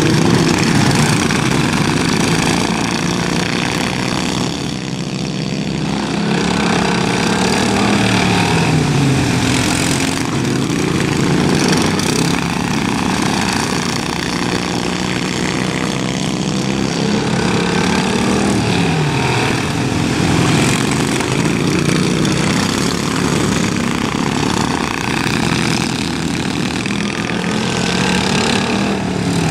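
Several racing lawn mowers' Briggs & Stratton engines running hard around a dirt track, a loud steady drone whose pitch falls and climbs again several times as they lap past.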